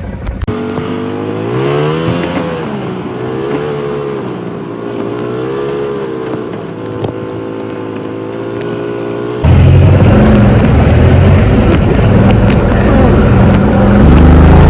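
Off-road buggy engine running, its pitch rising and falling with the throttle. About nine and a half seconds in it turns suddenly much louder and rougher.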